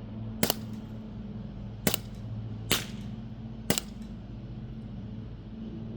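Crosman Z77 CO2-powered BB gun firing four sharp shots within about three seconds, the last three roughly a second apart. A steady low hum runs underneath.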